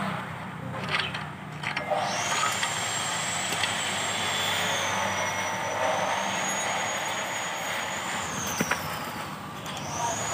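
A thin, high-pitched machine whine comes in about two seconds in, holds with a slight dip and rise in pitch, winds down near the end and then starts up again. A few light metallic clinks come from connecting-rod caps being handled on the crankshaft of the bare engine block.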